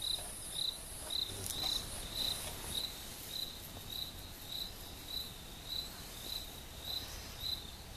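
A cricket chirping in an even rhythm, short chirps at one high pitch just under two a second. A fainter, higher insect hiss runs under it for the first few seconds.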